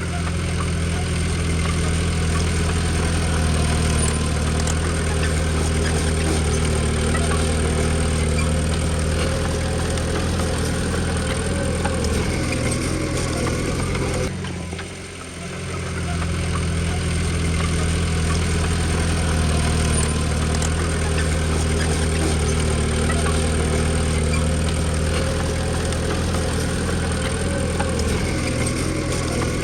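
Diesel engine of heavy earthmoving machinery running steadily, with a short dip in level about fifteen seconds in.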